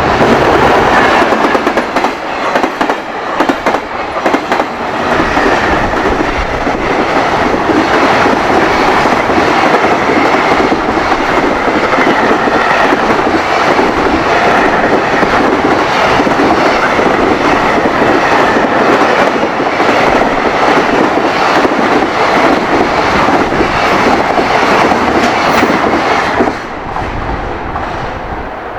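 High-speed container freight train passing close at speed, its wagon wheels clattering over the rail joints in a rapid, continuous clickety-clack. The noise drops noticeably near the end as the train's tail goes by.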